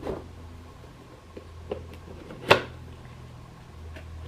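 Hands handling boxed merchandise packaging: a few light knocks and clicks, with one sharper tap about two and a half seconds in, over a steady low hum.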